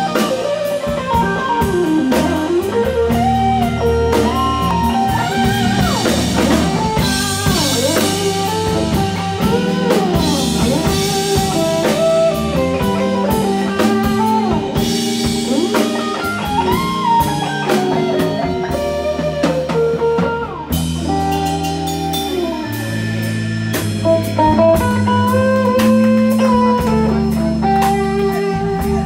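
Live band of Hammond B-3 organ, electric guitar, bass guitar and drum kit playing an instrumental, with bending guitar notes over the organ and a steady drum beat. The band stops for a moment about two-thirds of the way through, then comes back in.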